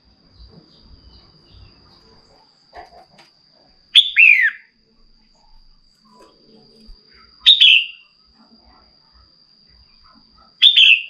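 Female red-whiskered bulbul calling: three short, bright calls about three seconds apart, each a quick run of notes sweeping downward. These are the calls a hen bulbul gives to rouse a male.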